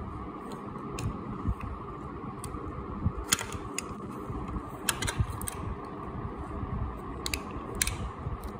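Scattered sharp clicks and small cracks at irregular intervals from a hand-worked orange plastic sunflower-seed cracker, over a steady background hum.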